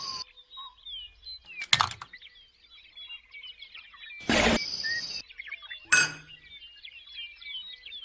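Small birds chirping and twittering in quick, high short calls throughout, broken by a sharp knock about two seconds in, a louder noisy burst around the middle, and a sharp click a little later.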